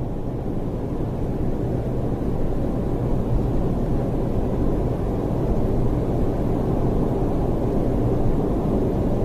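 Steady road noise heard inside a car's cabin at expressway speed: a low, even rumble of tyres on the road surface and the running engine.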